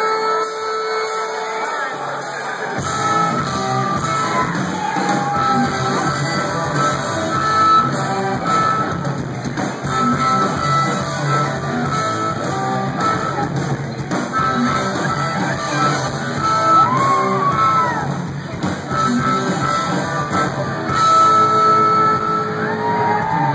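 Live rock band with a harmonica played through the vocal microphone, held and bent notes wailing over electric guitar, bass and drums. The full band's low end comes in about three seconds in.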